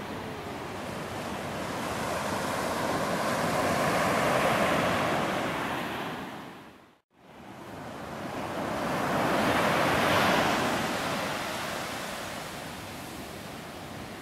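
Surf washing on a sandy beach, swelling and easing twice. The sound dips briefly to silence about halfway through.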